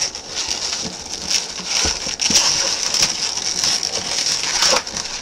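Latex modelling balloons being twisted and wrapped around one another, rubbing latex on latex: a dense, irregular rustle with scattered clicks and squeaks.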